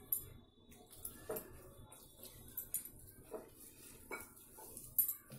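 A hand mixing and rubbing dry flour dough in a glass bowl: soft, scratchy rubbing broken by a few light knocks and clinks against the bowl, the sharpest near the end.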